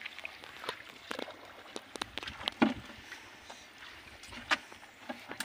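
Hands splashing and squelching in shallow muddy water while groping for fish, a series of short irregular splashes, the loudest about two and a half seconds in and again at the very end.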